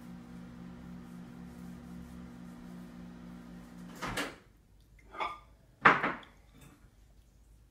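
A steady low hum that stops about four seconds in, then three sharp household clatters, the last the loudest, like cupboards or dishes being handled.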